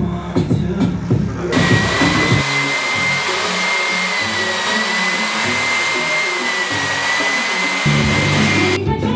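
An electric blower's steady rush of air with a high, slightly wavering motor whine comes in suddenly about a second and a half in and cuts off near the end, over background music with a bass line.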